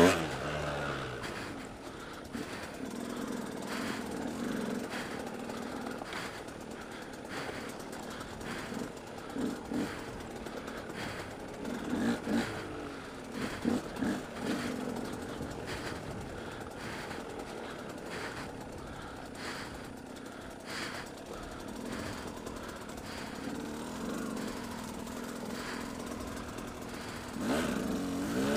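Dirt bike engine running at low speed over rough ground, the throttle worked on and off to ease the bike through jolts, with scattered knocks and clatter from the bike. The revs pick up near the end.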